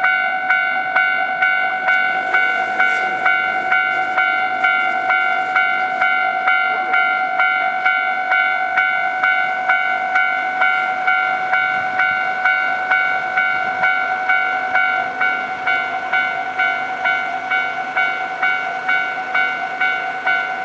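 Japanese railway level-crossing alarm bell ringing in a steady, even rhythm of about two strikes a second, a bright clanging tone with several overtones.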